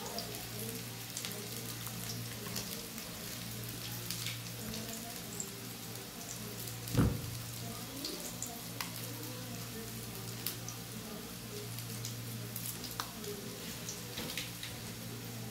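Minced-meat burger patties shallow-frying in oil in a steel frying pan: a steady sizzle with scattered pops and crackles over a low steady hum. A single knock about halfway through is the loudest sound.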